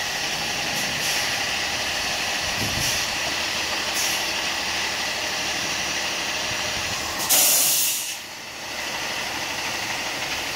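Dump truck running with its bed raised, a steady noisy engine sound, with one loud, short burst of air hiss about seven seconds in.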